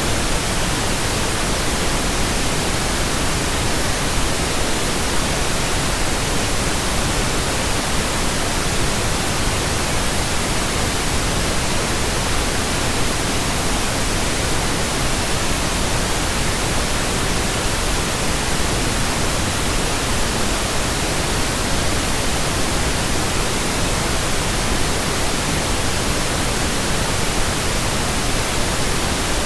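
Steady pink noise: an even, unchanging hiss spread across all pitches.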